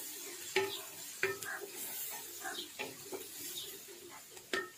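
Wooden spatula stirring and scraping fried onions and ginger-garlic paste around a metal pot while the oil sizzles, the paste frying to cook off its raw taste. A few sharp knocks of the spatula against the pot, the loudest just before the end.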